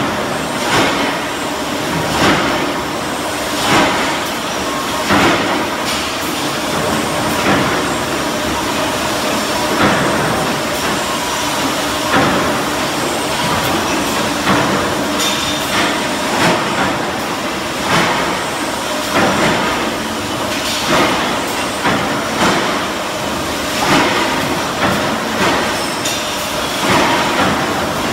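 Stamping presses on a brake pad backing plate production line running, with a press stroke striking every second or two over steady machine noise.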